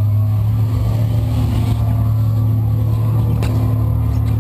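A loud, steady low-pitched hum, with a couple of faint clicks in its second half.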